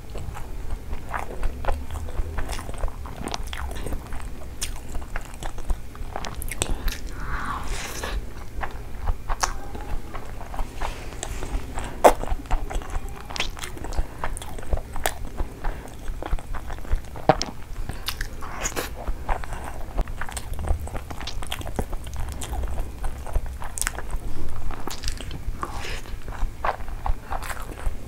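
Close-miked eating: chewing and biting with crunchy bites and many sharp, wet mouth clicks, while fingers mix rice into curry gravy.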